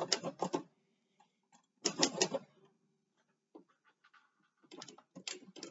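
Manual typewriter keys striking in quick runs of several strokes: one run at the start, another about two seconds in, and more near the end, with scattered single clicks between.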